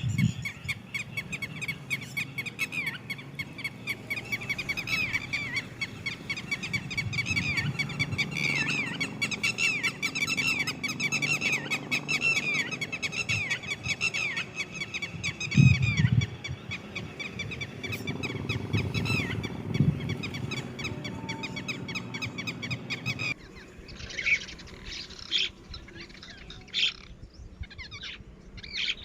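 Red-wattled lapwings calling: a rapid, steady stream of short, high repeated calls, with two low thumps near the middle. About three-quarters of the way through there is an abrupt change, after which the calls come as fewer, sharper separate notes.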